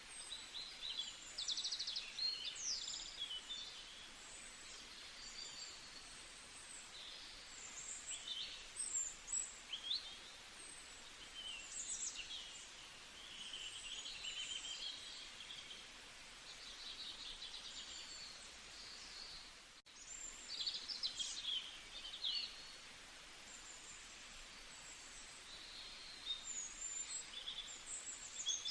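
Several small birds chirping and singing in quick, high notes and short trills, over a steady background hiss.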